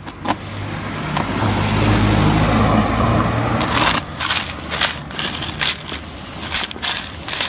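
A low hum swells and fades over the first half. From about halfway in, a stiff hand brush sweeps flakes of rust and body filler across tarmac into a plastic dustpan in short scratchy strokes.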